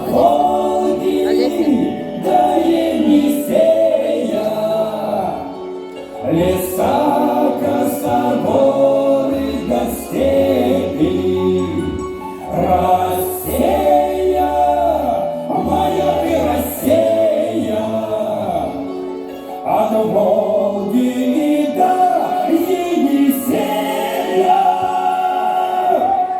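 A song performed to music, with choir-like singing voices carrying the melody.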